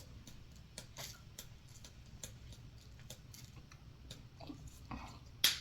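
Quiet eating and food-handling sounds: faint, irregular small clicks and taps, with one sharper click near the end.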